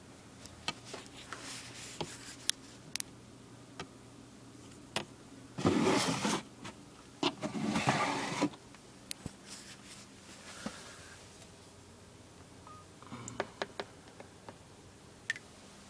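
Handling noises: light clicks and taps from metal feeding tongs and plastic snake-rack tubs, with two longer scrapes about six and eight seconds in.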